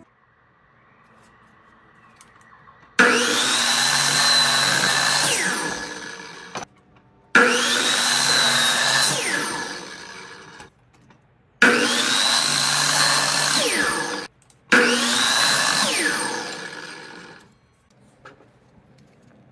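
Stanley miter saw crosscutting a wooden board, started four times. Each time the motor comes on suddenly with a high whine. It runs for a couple of seconds, then the whine falls in pitch and fades as the blade winds down.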